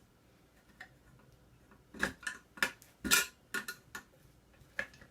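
Sharp metal clicks and clinks from a microwave magnetron being worked apart by hand, an irregular run of about a dozen that starts about two seconds in.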